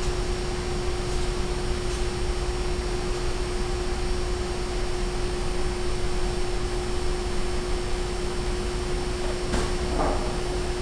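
Duramax LMM 6.6-litre V8 turbodiesel idling steadily, with a steady whine over the engine noise. A brief knock comes near the end.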